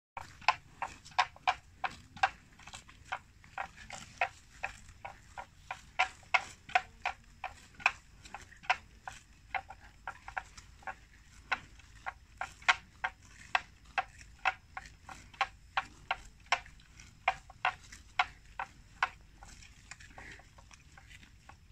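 Water buffalo grazing, cropping and tearing grass in quick, sharp snaps, about two or three a second, thinning out near the end.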